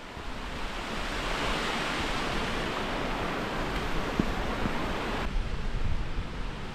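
Rushing water of a moorland stream running down over rock slabs, a steady hiss that cuts off suddenly about five seconds in.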